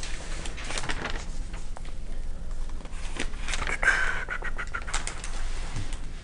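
Scattered clicks and rustling room noise, with a brief pitched squeak-like sound about four seconds in.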